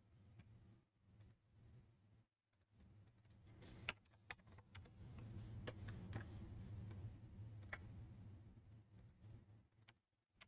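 Faint, scattered clicks of a computer mouse and keyboard over a low hum.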